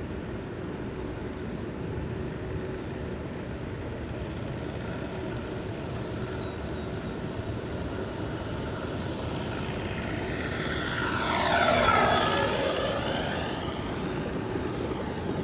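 Flightline Corsair F4U-1A electric RC warbird in flight, its propeller and motor running together with an onboard speaker system that plays engine sound. It drones steadily, then passes close about two-thirds of the way through, growing louder and falling in pitch as it goes by.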